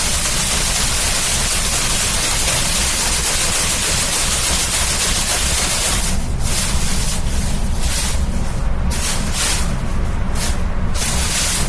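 Amazon Basics box fan running with a plastic grocery bag caught in its blades, giving a loud, steady hiss of rustling, tearing plastic over the fan's rumble. About halfway through the hiss starts to break off and return in irregular flaps as the bag shifts in the blades.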